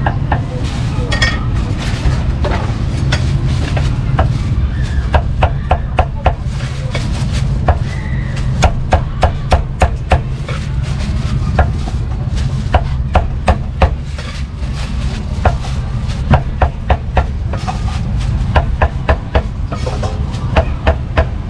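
Meat cleaver chopping roast meat on a thick round wooden chopping block: quick runs of sharp knocks with short pauses between them, over a steady low background rumble.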